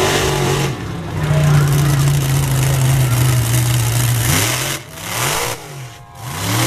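Monster truck engine running loud and steady under power as the truck drives up onto a row of junked cars; about four seconds in the revs drop and swing up and down, with the sound dipping twice.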